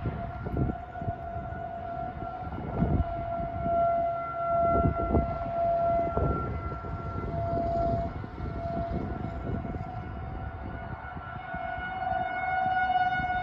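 Outdoor tornado warning siren sounding one steady tone, its loudness swelling and fading, over a low rumbling background. A fainter, buzzier tone joins about twelve seconds in.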